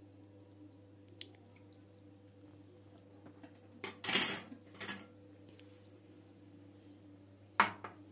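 Kitchenware handling: a metal cooking pot clatters as it is lifted away from a ceramic plate about halfway through. Near the end the ceramic plate is set down on a granite countertop with one sharp clack, the loudest sound.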